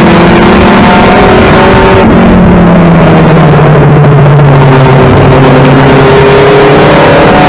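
1992 Toyota Celica GT race car's four-cylinder engine heard from inside the cabin, running hard and loud enough to overload the recording. About two seconds in the engine note falls as the driver lifts for a turn, then climbs again as he gets back on the throttle.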